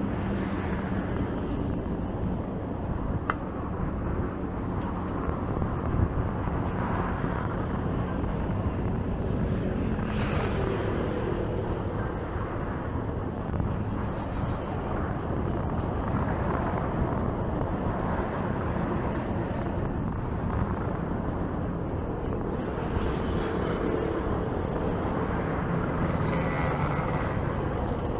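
Road traffic passing steadily: vehicle engines and tyres, with cars rising and fading as they go by every several seconds.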